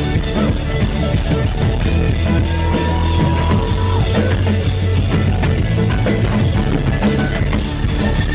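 Live amplified rock band playing, with several players pounding on drums over bass guitar. A single high note is held for about a second and a half near the middle.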